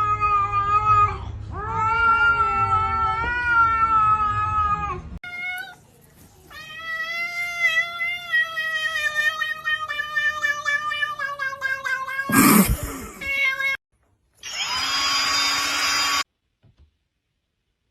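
Cats yowling in long, drawn-out, wavering cries, with a second cat taking over about six seconds in. Near the end comes a short loud noise, then a steady tone with hiss that cuts off suddenly.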